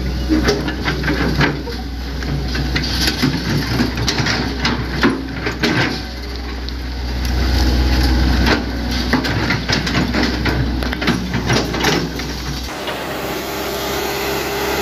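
Hitachi Zaxis 100 excavator's diesel engine running under work, a steady low drone, with repeated knocks and clanks from the machine working. The low drone drops away about two seconds before the end.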